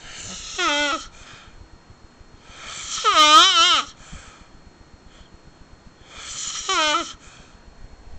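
Someone snoring: three snores about three seconds apart. Each begins as a breathy rush and ends in a wavering, pitched whine that sinks slightly.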